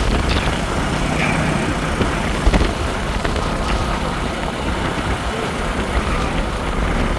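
Motor vehicle engine running steadily, with road and traffic noise.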